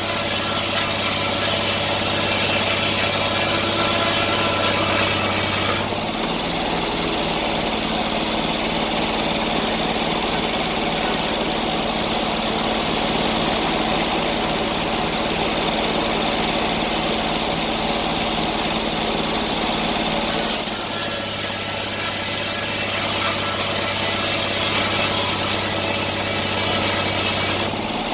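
Sawmill's engine running steadily, its sound shifting abruptly about six seconds in and shifting back near twenty seconds in.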